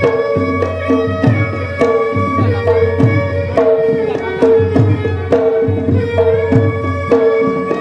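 Instrumental dance music: a held, wavering melody line over a busy, steady hand-drum-style beat.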